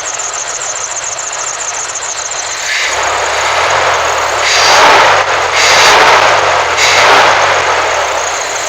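A Dodge Durango's 5.9-litre V8 idling, then speeding up and dropping back about three seconds in, with a few loud hissing surges over it. It is running a little funny after new plug wires, which the owner thinks could mean a crossed plug wire.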